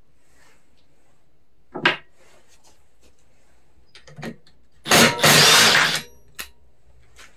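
Disassembly work on a lawn mower: a sharp knock, a few lighter taps, then a loud harsh burst of tool noise lasting about a second, briefly broken near its start, and a last small click.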